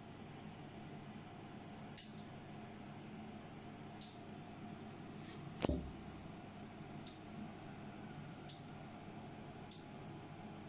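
Fingertip taps on a test bench's touchscreen: about eight short, sharp ticks a second or two apart, one heavier knock with a dull thud about halfway through, over a faint steady hum.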